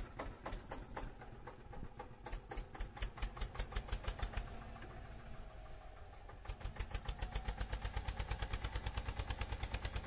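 Tractor engine running with an even beat of about five pulses a second. The beat dips quieter in the middle and picks up again about six and a half seconds in.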